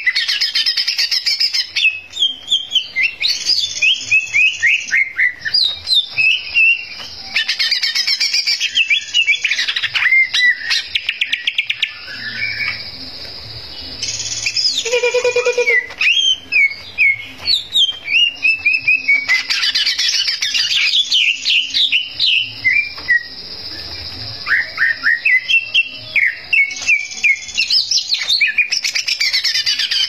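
Male cucak ijo (green leafbird) singing nonstop: fast, varied runs of chirps, sweeping whistles and trills, with a short pause about twelve seconds in before it picks up again.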